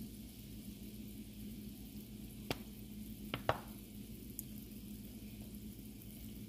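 Butter and minced garlic sizzling gently in a pan, with three sharp clinks of a metal measuring spoon against the pan about two and a half to three and a half seconds in, the last one the loudest and briefly ringing.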